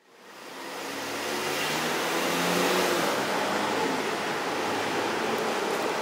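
Street noise fading in over the first second, with a motor vehicle's engine running close by, loudest around the middle and then holding steady.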